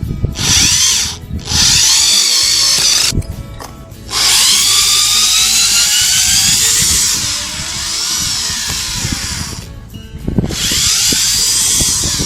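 Foster FSD-010 corded 350 W power screwdriver running in four trigger bursts as it drives screws, its motor whine rising and falling in pitch. The longest burst, about five seconds, is in the middle.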